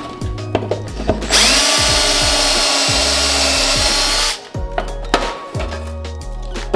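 Cordless drill boring through a plastic panel, running hard for about three seconds from a little over a second in and stopping abruptly. Background music with a steady low beat.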